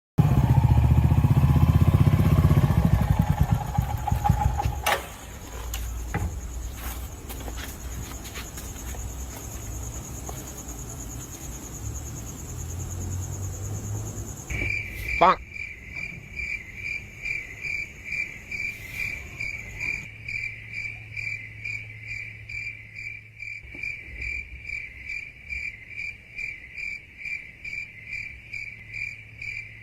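Crickets chirping at night, a steady high trill pulsing about twice a second that sets in about halfway after a sharp click. The first few seconds hold a louder low rumble.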